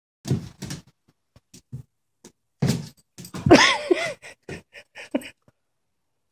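Beagle puppy's paws thumping and scratching against a wall and wooden floor as it jumps at a laser dot, in a string of short knocks. About halfway through comes a louder scramble with a short rising-and-falling whine from the dog.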